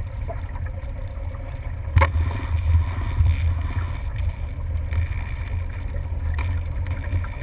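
Motorboat under way: a steady low engine rumble with wind buffeting the microphone. A sharp knock about two seconds in and a lighter one near the end.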